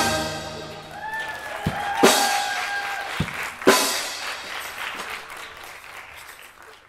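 A steel band's final chord cutting off and ringing away, then an audience clapping and cheering with one long whoop. The applause fades out.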